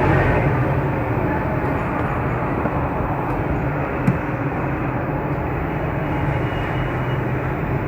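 Steady background rumble and hiss with a low hum underneath, and a single sharp click about four seconds in.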